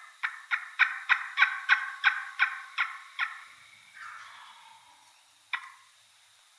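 A run of about eleven sharp turkey yelps, roughly three a second, followed by a quieter drawn-out note and one more single yelp near the end.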